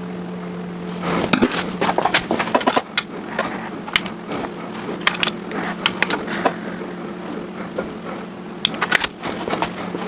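Scattered sharp clicks and knocks of metal tools and engine parts being handled, some in quick clusters, over a steady hum.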